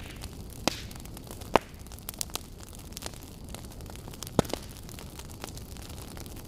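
Irregular crackles and pops, a handful of sharp ones scattered through, over a steady low hum and hiss.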